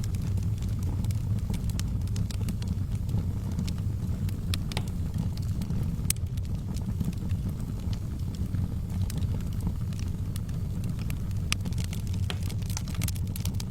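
Wood fire in a fireplace crackling, with irregular sharp pops and snaps over a steady low rumble of burning; the crackles come thicker near the end.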